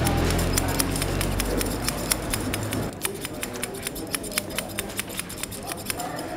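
Barber's scissors snipping hair in quick, irregular snips, several a second. A low hum runs under the first half and stops about halfway through.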